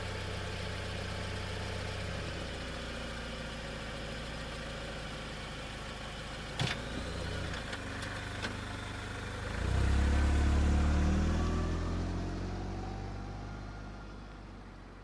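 Car engine idling steadily, with a sharp click a little before halfway and two lighter clicks after it. About two-thirds through the engine revs up briefly, then the sound fades away.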